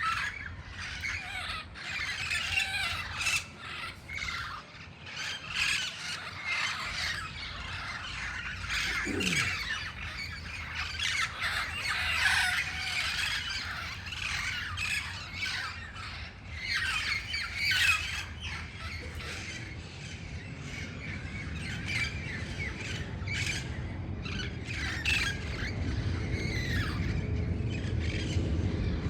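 A flock of parrots squawking, with many harsh calls overlapping almost continuously. A low rumble grows beneath them over the last several seconds.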